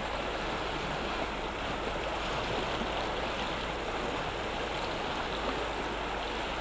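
White-water river rapids rushing steadily, a constant even wash of moving water.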